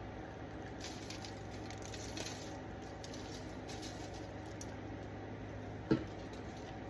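Faint patter of seasoning being shaken from shaker bottles onto a cabbage, over a steady low hum, with one sharp tap about six seconds in.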